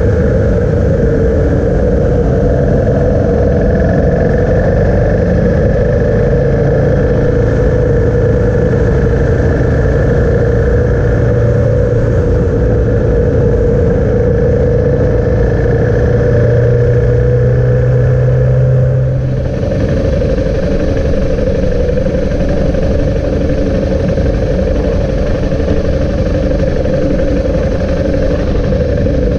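Steady drone and road or wind noise of a moving vehicle, heard from a camera mounted on it. The sound changes abruptly about nineteen seconds in.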